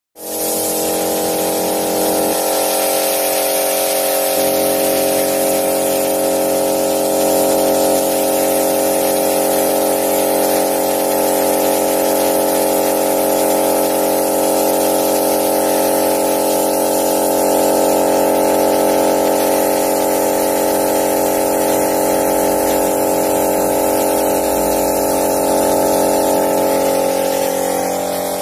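Air compressor running steadily with a constant hiss of air, supplying an HVLP spray gun. It starts suddenly and eases off slightly near the end.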